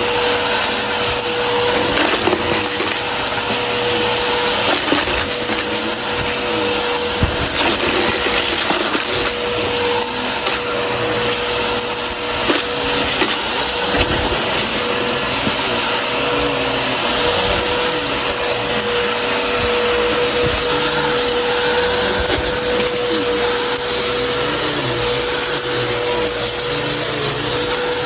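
Vacuum cleaner running steadily, with a constant motor whine over a loud rush of air. Scattered sharp clicks and crackles come from dry, crunchy debris being sucked up. The airflow hiss changes character about twenty seconds in.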